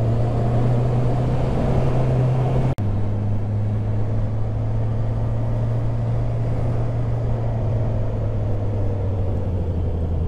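Car engine and road noise while driving, a steady low drone, broken by a momentary dropout about three seconds in.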